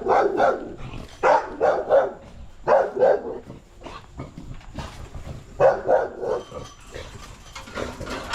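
Dog barking in quick runs of three or four barks, about four runs with short pauses between.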